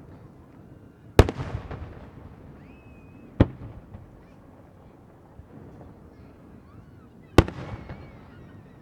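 Aerial firework shells bursting: a loud boom about a second in, a sharper, shorter bang about three and a half seconds in, and another loud boom near the end. The booms are each followed by about a second of rumbling echo.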